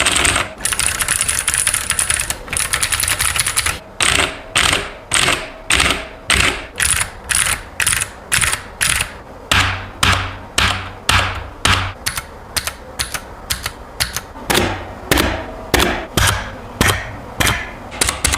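Mechanical keyboard keys being struck one at a time, a little under two strokes a second and faster near the end, in a typing-sound comparison of a Keychron Q1 and a Razer BlackWidow with green clicky switches. The Q1 sounds crisper and the BlackWidow heavier.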